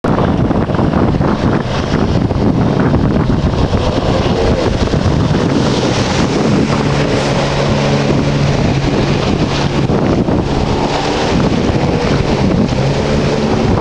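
Wind buffeting the microphone over breaking surf, with a jet ski's engine running; its engine note comes through clearly from about six to eleven seconds in and again near the end, as it passes close.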